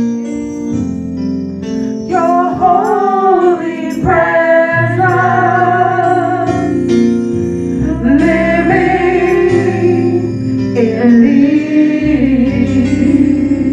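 Female worship team singing a slow gospel worship song into microphones, a lead voice gliding over backing voices, with held instrumental chords underneath that change every second or two.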